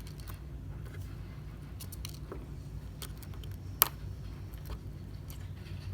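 Small clicks and ticks of a precision screwdriver and tiny screws being worked on a phone's frame, with one sharp metallic click a little under four seconds in. A steady low hum runs underneath.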